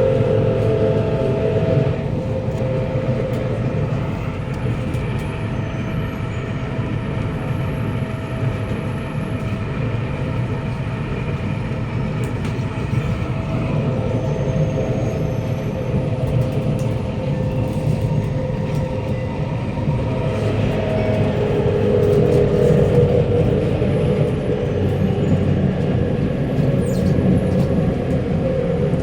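Kawasaki Nippon Sharyo C751B train running on the line, heard from inside the car: a steady low rumble of wheels on track with the traction motors' tone whining above it. About three quarters of the way through the motor tone swells louder and shifts in pitch.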